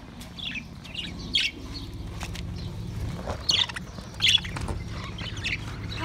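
A flock of budgerigars chattering: scattered short, high chirps, the loudest a little past the middle.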